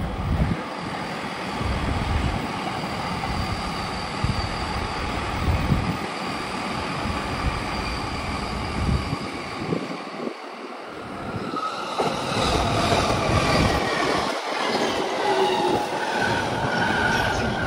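Electric commuter trains running through a busy station, a steady rumble of wheels on rails. About twelve seconds in, high whining tones rise over it.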